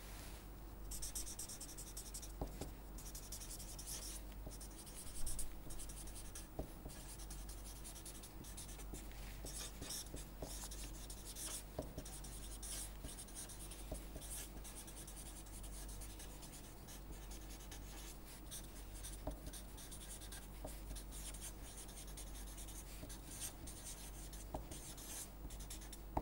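Felt-tip permanent marker writing on paper: irregular soft scratching strokes with small taps as the tip lifts and lands, over a faint steady low hum.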